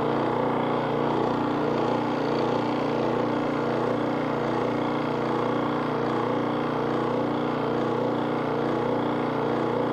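Automotive AC refrigerant recovery machine running steadily in purge mode, its compressor pushing the last refrigerant out of the machine into the recovery tank.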